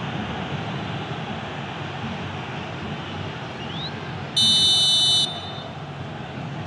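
Steady roar of a packed football stadium crowd, with a referee's whistle blown once about four and a half seconds in, a single sharp, high blast just under a second long.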